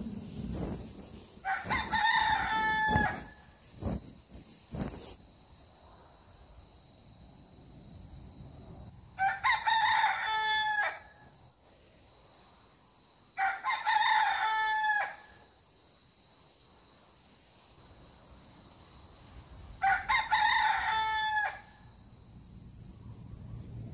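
Rooster crowing four times, each call about a second and a half long, several seconds apart. A few dull thumps come in the first few seconds, and a faint steady high-pitched tone sits underneath.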